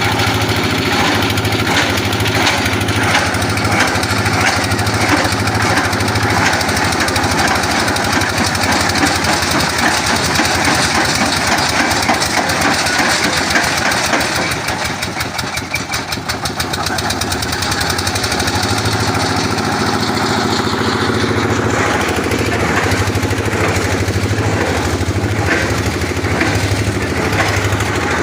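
Engine of a water-well boring rig running steadily, with a pulsing low hum and a brief drop in level about halfway through.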